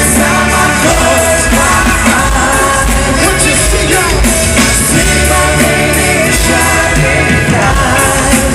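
Live pop band music played over an arena sound system, with many voices singing along after the singer's call to sing, recorded from far up in the stands.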